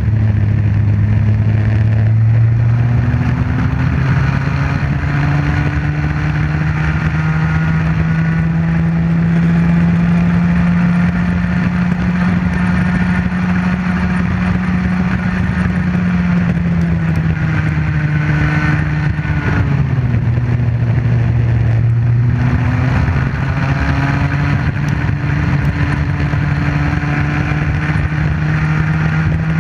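Comer C50 two-stroke engine of a Bambino kart running flat out, heard from onboard, with its pitch climbing slowly along the straight, falling for a few seconds past the middle as the kart slows for a corner, then climbing again.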